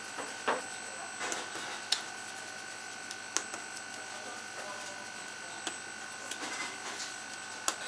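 Steady high electrical whine from kitchen equipment, with scattered light clicks and knocks of hands and dough on a stainless steel worktable.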